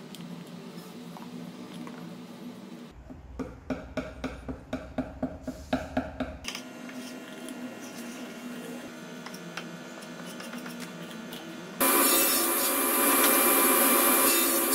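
A wooden stick stirring a paste of wood glue and sawdust in a plastic jar, with quick scraping knocks about three a second, then a putty knife scraping the filler into gaps in a pallet-wood tabletop. About twelve seconds in, a sliding table saw cuts in loud and steady, cutting a wooden board.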